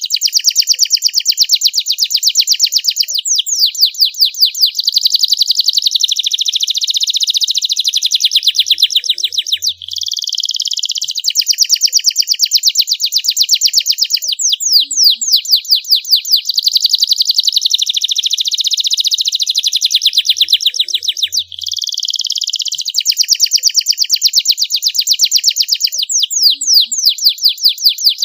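Young domestic canary singing a long, loud song of rapid trills and rolls. The phrases run almost without pause, with a short break about every twelve seconds.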